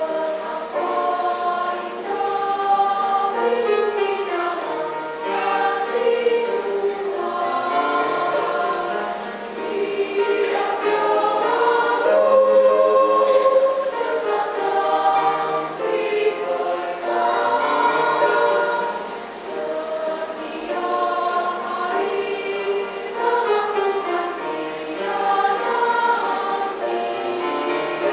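Children's choir singing a church song, the voices coming in together at the start after a quieter passage.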